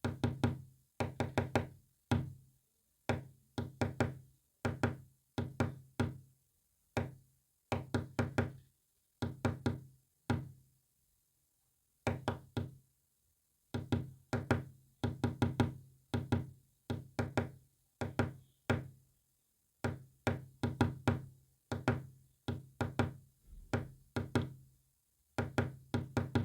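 Repeated knocking: quick clusters of raps, each with a short low ring, separated by pauses, tapping out a code.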